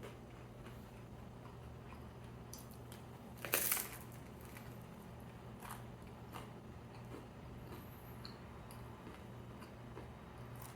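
Close-miked eating: soft chewing and small mouth clicks, with one loud crunchy bite about three and a half seconds in. A faint steady low hum runs underneath.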